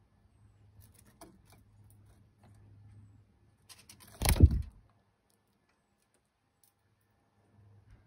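Faint scattered clicks as a small bird picks at sunflower seeds in a wooden tray feeder. About four seconds in comes one loud, short whoosh, strongest low down, lasting about half a second.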